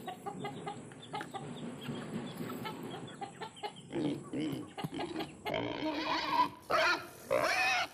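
Domestic chickens clucking around scattered feed. From about halfway, louder pitched calls from a pig grunting and squealing come in, and these are strongest near the end.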